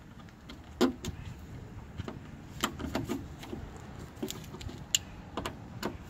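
A hand screwdriver tightening the screws of a sliding-door latch: scattered small metal clicks and taps, irregularly spaced, over a low steady rumble.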